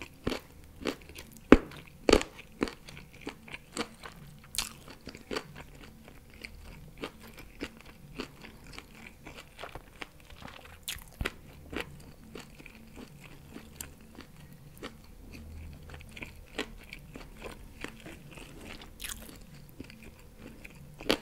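Close-miked chewing and biting of BBQ pork rib meat, with many irregular sharp wet clicks and smacks from the mouth, loudest in the first couple of seconds.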